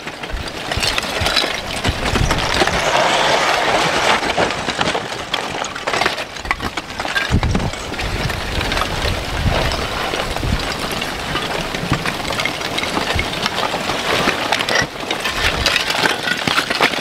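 Advancing front of blocky lava crackling and clinking continuously as the cooling crust breaks apart and chunks of rock shift and tumble.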